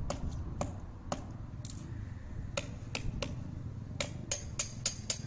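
A series of sharp, light metallic taps, about a dozen, irregular and coming faster in the second half: a hammer tapping a nail into the wall to fix the iron cladding frame in place.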